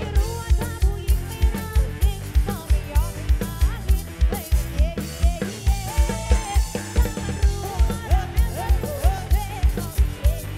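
Live band music from an electronic drum kit and keyboard: an upbeat dance song with a heavy kick drum on every beat and a sliding lead melody above it.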